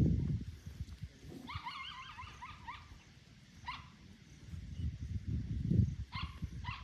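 An animal's short high calls: a quick run of wavering ones about a second and a half in, then single short calls near four seconds and twice near the end, over a low rumble that swells at the start and again near the end.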